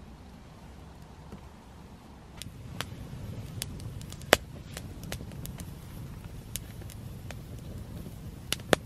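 Newly lit campfire burning, the wood crackling and popping over a low rumble that grows louder a couple of seconds in. The sharpest pop comes about four seconds in, with two more close together near the end.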